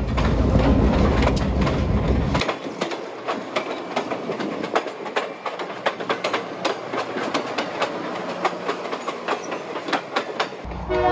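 Diesel-hauled passenger train passing close by. The diesel locomotive's low engine rumble is heard for about the first two seconds. Then the passenger cars roll past with a running clickety-clack of sharp clicks as their wheels cross the rail joints.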